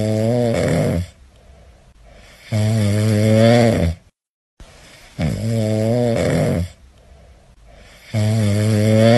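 Sleeping French bulldog puppy snoring: four low, drawn-out snores about three seconds apart, with softer breaths between them.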